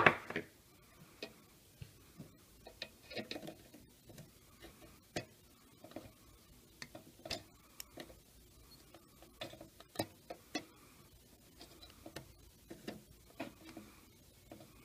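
Irregular faint clicks and taps of metal tools, a soldering iron tip and tweezers, working at a circuit board's solder pad to free an old NiCd CMOS battery lead; the sharpest click comes about ten seconds in.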